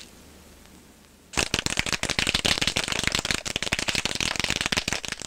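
A dense, rapid crackling rattle, a cartoon sound effect, starting abruptly about a second and a half in and cutting off just before the end.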